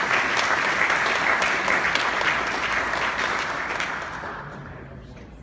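Audience applauding in a large room, the clapping dying away over the last second or so.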